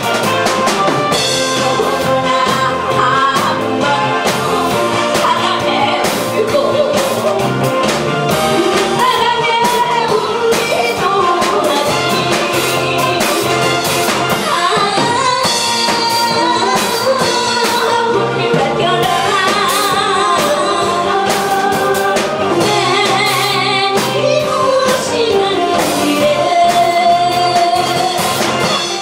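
An older woman singing a Korean song with vibrato into a microphone, amplified, over a band accompaniment with a steady drum beat.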